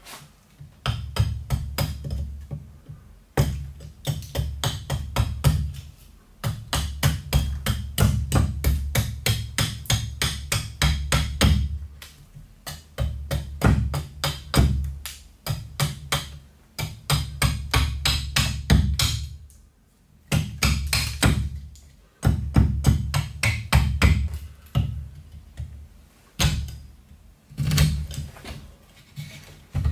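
Robin Wood carving axe chopping into a wooden spoon blank held on a chopping stump: quick runs of sharp strikes, several a second, each with a dull thud from the stump, broken by short pauses.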